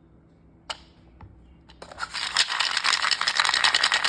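Dry dog kibble rattling into a bowl as it is poured or scooped: a single click, then a dense, loud rattle of many small pieces starting about two seconds in.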